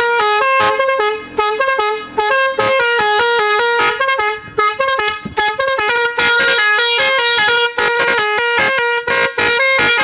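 A three-trumpet telolet horn playing its jaunty tune, hopping quickly between a few bright notes several times a second with short breaks.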